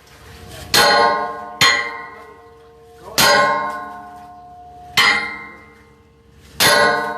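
Heavy hammer striking metal five times at uneven intervals, each blow ringing out with a bell-like metallic tone that fades before the next. The blows are driving on a ship's propeller during fitting.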